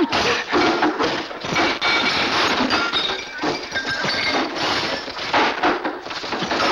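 Brawl sound effects: a dense run of crashes, thuds and ringing clinks, like clay pots breaking and furniture and objects knocking together as men fight.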